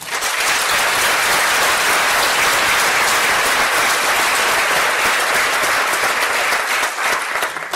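Audience applauding steadily, many hands clapping at once, at the close of a talk.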